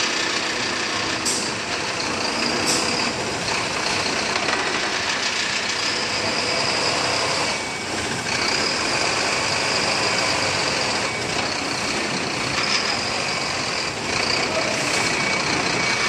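Truck-mounted hydraulic crane working off the truck's running engine while it moves a large heavy drum: a loud, steady mechanical noise with a high whine that comes and goes and a few sharp clicks.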